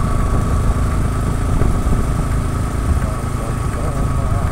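Motorcycle engine running steadily while riding along, with a continuous low rumble.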